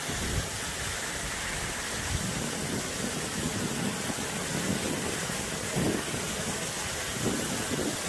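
Steady rushing hiss of a waterfall, with wind buffeting the microphone in uneven low gusts.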